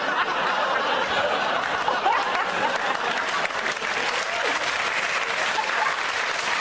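Studio audience applauding steadily, with some laughter mixed in.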